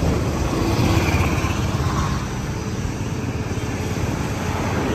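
Two-stroke Yamaha motorcycle engines idling, a steady, loud engine sound.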